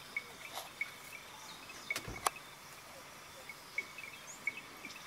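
Insects chirping in the bush: short high chirps repeating every half second or so over a steady high hum, with a few sharp clicks, the loudest a little over two seconds in.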